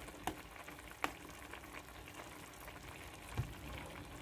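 Prawns simmering in a sauce in a nonstick wok: a faint, steady sizzling bubble, with three light clicks.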